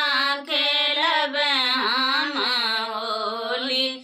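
Two women singing a phagua, a Bhojpuri Holi folk song, unaccompanied, drawing out one long wavering vowel phrase that ends right at the close.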